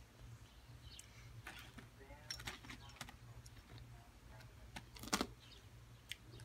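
Quiet eating and handling sounds: a fork working food on a paper plate, with scattered small clicks and rustles and one sharper knock about five seconds in, over a steady low hum.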